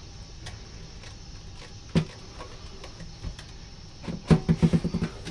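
Metal dryer vent pipe knocking and rattling: one sharp knock about two seconds in, then a quick run of ringing clanks lasting about a second near the end as the pipe is worked loose from its fitting.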